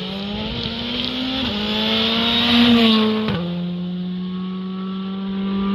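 Rally car accelerating hard past and away: the engine revs climb, drop at a gear change about one and a half seconds in, climb again to the loudest point as the car goes by, then drop sharply at another gear change and hold steady as it pulls away.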